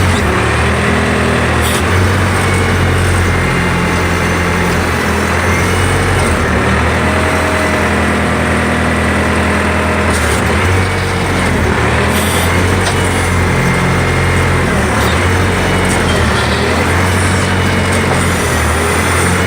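Backhoe engine running steadily under load as it digs, its note shifting now and then, with a high whine that rises and falls from the hydraulics and a few sharp knocks.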